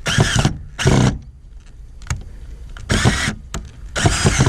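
Cordless drill driving screws in four short bursts, each a second or less, with pauses between.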